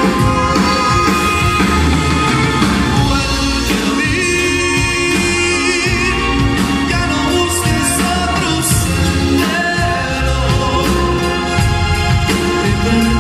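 A band playing with a lead voice singing over a steady beat, the singer holding a note with vibrato about four seconds in.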